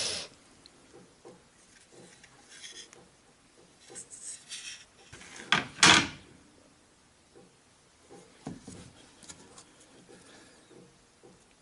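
Wooden ship-model hull being handled on a work table: light rubbing and taps, then two sharp wooden knocks close together about halfway through as the hull is set down onto its wooden stand, followed by a few softer knocks.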